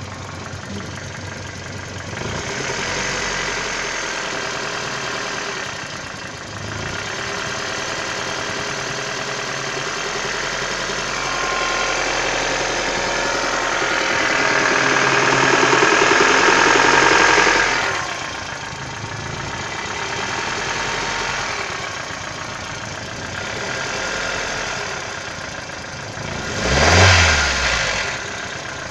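Toyota Caldina's 5E-FE 1.5-litre four-cylinder petrol engine running with a knock, a year after a rebuild with a new crankshaft and new bearings, and the cause unknown to the owner. The engine picks up speed and grows louder from about halfway through, drops back sharply after about 18 seconds, and surges briefly near the end.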